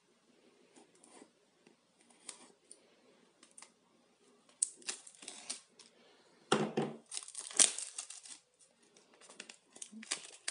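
Clear plastic seal on a small cardboard box being slit with a knife and then torn and peeled off, crackling and crinkling in irregular bursts, loudest a little past halfway through.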